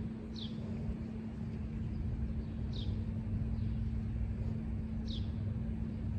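Outdoor ambience: a steady low rumble and a faint steady hum, with a bird giving a short, high, falling chirp about every two seconds, three times.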